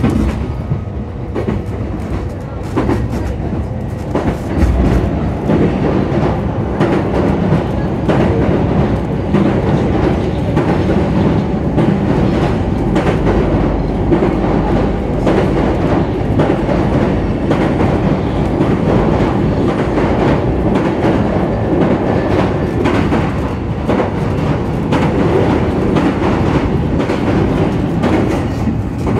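Running sound heard inside the saloon of a JR East E531 series electric train: a steady rumble of wheels on the rails with frequent clicks from rail joints. It grows louder over the first five seconds or so.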